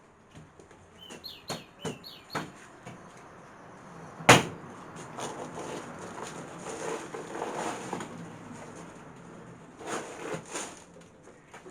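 Knocks and clatter of pallet timber being handled, the loudest a single sharp knock about four seconds in. A small bird chirps several times in the first couple of seconds.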